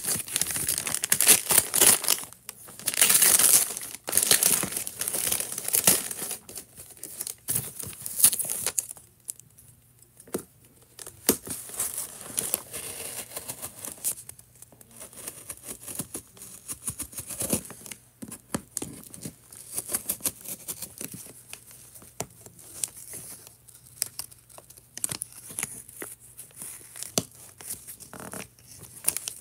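A box being opened by hand: packaging tearing and crinkling in loud bursts for the first several seconds, then quieter rustling and handling clicks.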